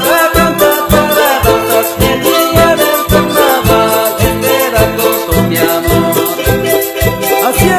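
Recorded Andean carnavalito-style music with a steady, quick beat.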